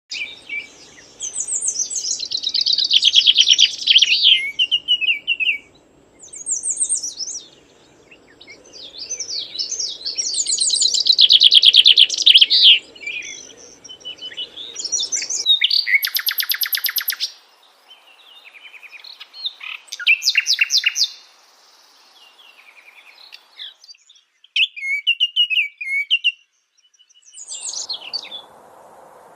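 Songbirds singing: a string of fast, chirping, warbling phrases with short pauses between them, some phrases a rapid buzzy trill.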